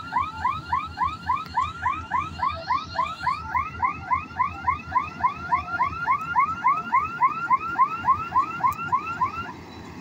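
An electronic warning alarm repeating a short rising chirp about three times a second, stopping just before the end. Under it, the diesel engine of a Kartar Crop Cruiser combine harvester runs steadily.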